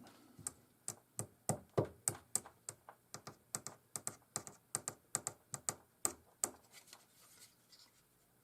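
Rapid light clicks and taps, about three a second for some six seconds, thinning out near the end: small hard parts or tools being handled on the workbench during a circuit board inspection.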